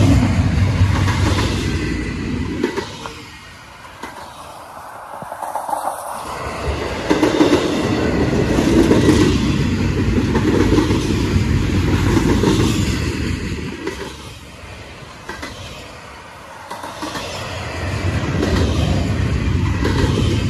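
Double-stack intermodal freight train's well cars rolling past at close range: steel wheels clattering over rail joints, the rumble swelling and dipping every several seconds as the trucks go by.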